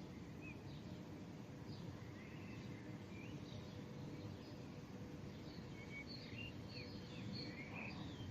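Faint dawn birdsong from several small birds: scattered short chirps and quick slurred whistles, growing busier in the last couple of seconds. Underneath runs the steady low hum of a distant city.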